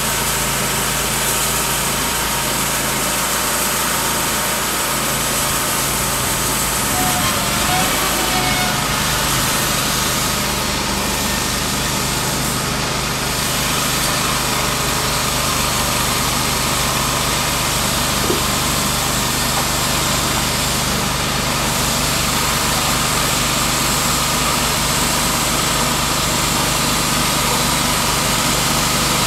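Timberking B-20 portable sawmill's engine running steadily, its low note shifting about seven seconds in.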